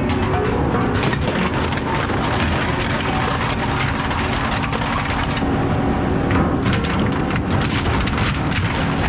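Industrial shredder's hooked rotors crushing and tearing apart a cement mixer drum with continuous grinding and cracking, over a steady hum from the machine. Near the end, wooden pallets and crates tumble into the cutters.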